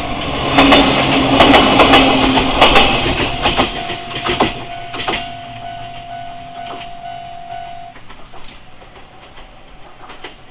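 A Jōmō Electric Railway train passing over a level crossing, its wheels clacking sharply over the rail joints, loudest in the first few seconds and fading. The crossing's warning alarm sounds as a steady tone throughout and cuts off about eight seconds in.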